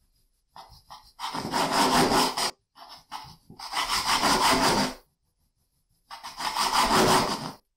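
Knife sawing through the crusts of a stack of white bread slices on a wooden cutting board. Three cuts, each starting with a couple of short strokes and then a long sawing pass of about two seconds.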